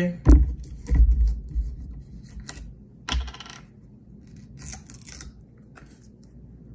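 A plastic bottle of Canine Red Cell liquid supplement being handled. It is shaken at first with a few knocks, then its screw cap is twisted open with scattered clicks and clatters of plastic.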